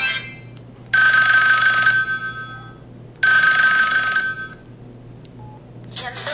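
Mobile phone playing an old-style telephone-bell ringtone through its speaker: two rings about a second long each, with a pause of just over a second between them. A different tone begins near the end.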